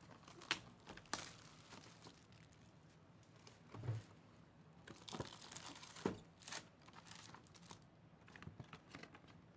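Faint rustling, tearing and light cardboard clicks as a sealed trading-card hobby box is opened and its foil-wrapped packs are pulled out and stacked.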